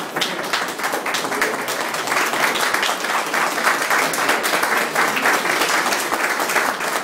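A room full of guests applauding: many people clapping in a dense, steady patter.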